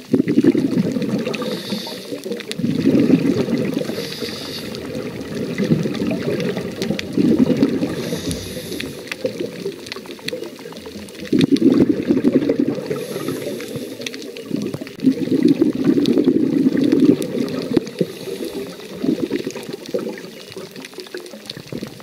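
Scuba diver breathing through a regulator underwater: a rumbling rush of exhaled bubbles about every four seconds, with a short hiss of inhalation between them.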